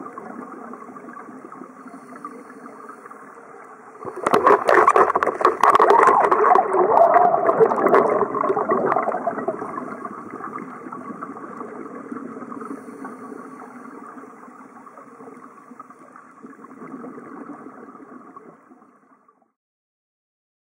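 Muffled underwater sound through a dive camera's housing: a steady low drone. From about four to nine seconds in comes a loud spell of bubbling and crackling from a scuba diver's exhaled bubbles. The sound eases off and stops near the end.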